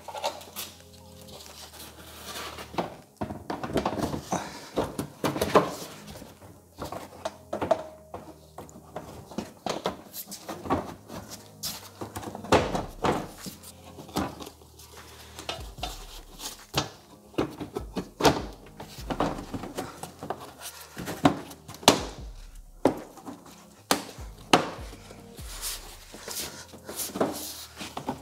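Irregular plastic knocks, taps and clicks as a car's plastic rear bumper cover and its trim are handled and pressed into place.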